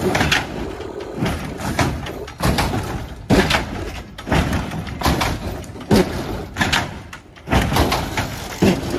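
Hydraulic lowrider car hopping: the car's front end bangs down onto the pavement again and again, about once a second.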